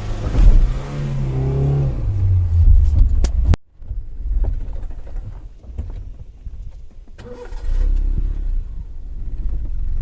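A vehicle engine running with a heavy low rumble, its pitch stepping up in the first two seconds as it revs. The sound drops out abruptly about three and a half seconds in, then the rumble comes back.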